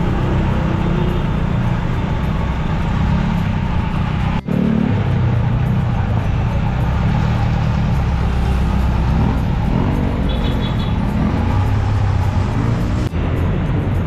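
Steady rumbling wind on the microphone mixed with road traffic noise while riding a bicycle on the road. The sound drops out for an instant twice, about four and a half seconds in and near the end.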